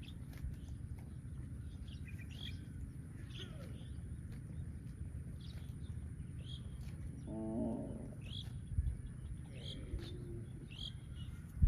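Small birds chirping in short repeated calls over a steady low rumble. About two-thirds of the way in, a calf gives a short moo, and a fainter one follows a couple of seconds later.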